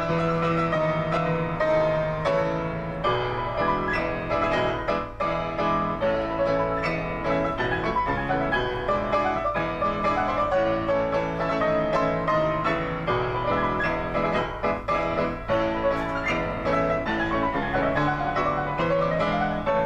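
Solo grand piano playing a classical piece: a busy run of notes over a repeated bass line, without a break.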